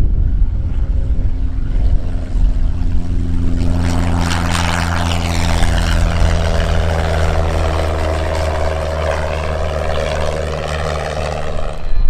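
Single-engine Cessna's piston engine and propeller running at climb power as the plane lifts off and climbs past. The drone grows fuller about four seconds in, then slowly falls in pitch as it draws away.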